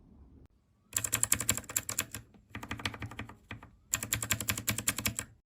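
Typing on a mechanical keyboard: three bursts of fast keystrokes, separated by short pauses, the last one stopping suddenly.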